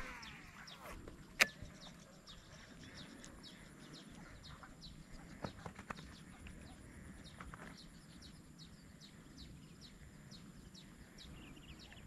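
Faint outdoor ambience full of small birds chirping: many short, high calls, each falling quickly in pitch, repeating throughout. There is one sharp click about a second and a half in.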